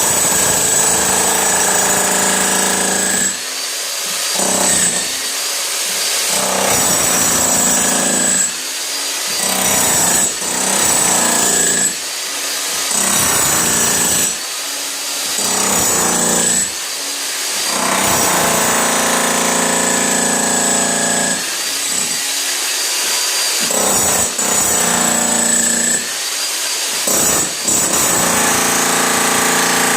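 Electric jackhammer (an SDS Max demolition hammer) running continuously while breaking up a thin layer of concrete. Its hammering dips briefly every two to three seconds.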